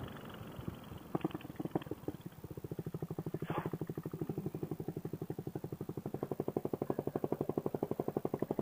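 Motorcycle engine running steadily at low revs, a rapid even putter of roughly a dozen pulses a second that starts faint and settles in about two seconds in.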